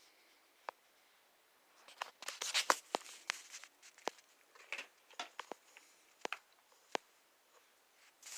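Irregular sharp clicks and short scraping rustles from a small object being handled, busiest from about two seconds in and thinning out toward the end.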